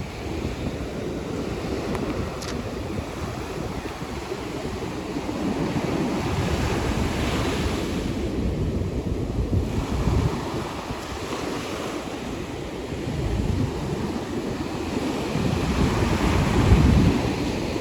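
Ocean surf breaking and washing on a beach, swelling and easing every few seconds, with wind buffeting the microphone in low rumbles.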